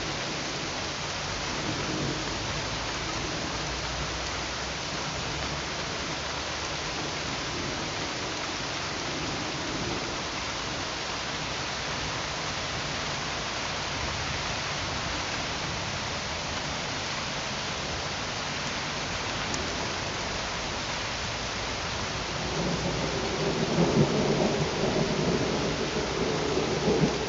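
Steady rain, an even hiss. About twenty-two seconds in, a louder low rumble of thunder rolls in and lasts to the end.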